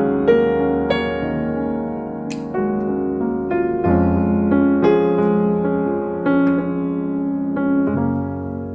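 Background music: a soft piano melody with sustained chords, and a single sharp click about two seconds in.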